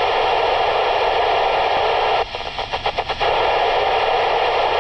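FM amateur radio receiver hissing steadily with the squelch open and no station coming through. A little over two seconds in, the hiss drops and flutters in rapid choppy breaks for about a second, then returns steady.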